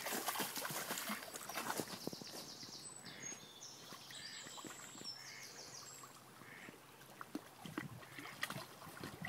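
Springer spaniel puppy wading in shallow lake water: light splashing and water lapping around the rocks, with crunching footsteps on a gravel shore at first and a few sharper splashes near the end.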